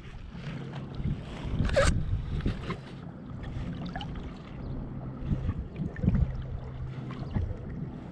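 Water sloshing and splashing against a sea kayak's hull as it is paddled, with wind rumbling on the microphone. A sharper splash comes about two seconds in.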